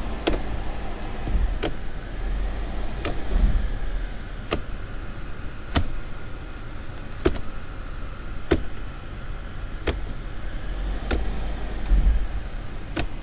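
Automatic transmission gear shifter of a third-generation Toyota 4Runner clicking through its detents: about ten evenly spaced clicks as it is moved from park down to low and back to park. Under it runs the low rumble of the 5VZ-FE V6 idling. The shifter is cycled this way so the fluid level can be checked at idle.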